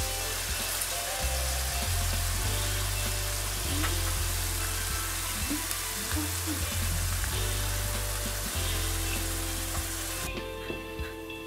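Diced apples sizzling in a nonstick frying pan as a spatula stirs them. The sizzle cuts off suddenly near the end, and a few light clicks follow.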